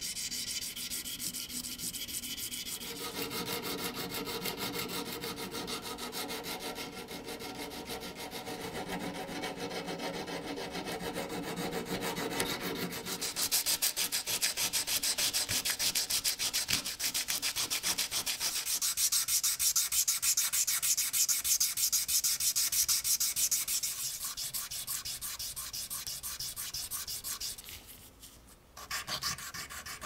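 Hand file and sandpaper rubbing on metal knife parts: quick back-and-forth scraping strokes, removing rust and smoothing the steel. The scraping changes tone several times as the work shifts from filing to sanding, and is loudest through the middle.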